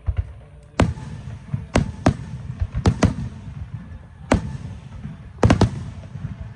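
Fireworks going off: a series of sharp bangs at irregular intervals, about nine in all, some in quick pairs, each followed by a short echo.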